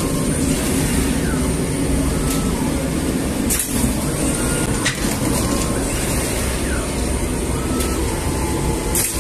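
Commercial rotating flatbread oven running: a steady mechanical drone with a high hiss. A sharp click comes about three and a half seconds in, and another near the end.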